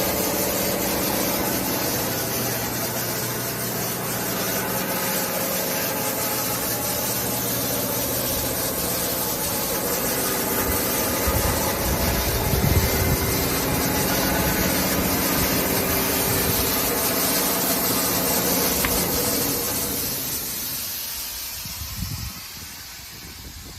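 SCM CL 110K RR wide-belt sander running, a steady mechanical hum under an even hiss. The sound dies away over the last few seconds.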